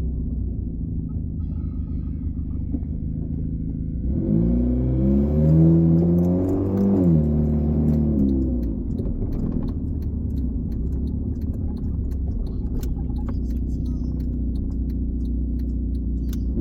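2009 Honda Fit's 1.5-litre four-cylinder engine heard from inside the cabin, its steady drone carrying the rasp of an exhaust leak. About four seconds in, the engine pulls harder and its note rises and gets louder, then eases back down near eight seconds, with scattered light rattles after.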